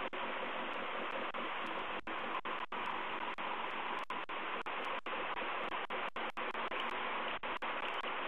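Steady hiss from a nest camera's audio feed, broken every so often by brief dropouts where the sound cuts out for an instant.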